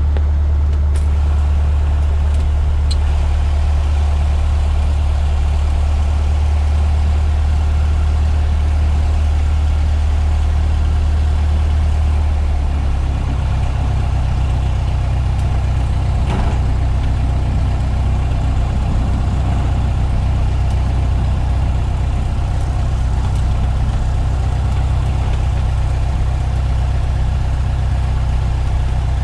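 Cessna 152's four-cylinder Lycoming engine running steadily; about thirteen seconds in its low hum steps up in pitch as the engine speeds up.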